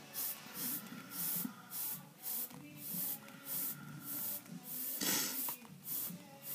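Iwata Eclipse airbrush spraying paint in short hissing bursts, about two or three a second, as the trigger is pulsed along a paper stencil; one longer burst about five seconds in.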